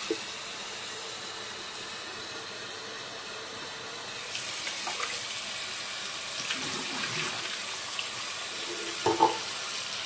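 Water running and splashing into a sink basin as a coffee maker's clear plastic water tank is rinsed and emptied. There is a short knock about nine seconds in.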